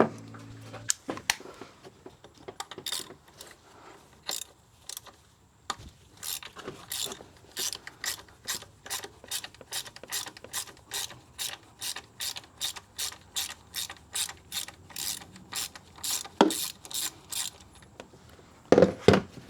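Socket ratchet clicking in a long run of short, even strokes, about two and a half clicks a second, as a part is loosened, with a couple of louder knocks near the end.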